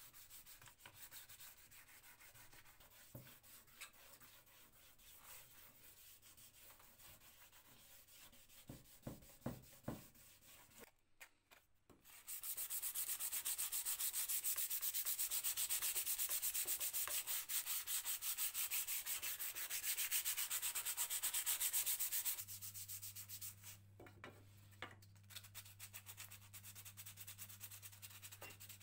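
Sandpaper rubbed by hand over plastic carpet-sweeper parts. Quick back-and-forth strokes are loud for about ten seconds in the middle, with softer scraping and a few clicks before and after.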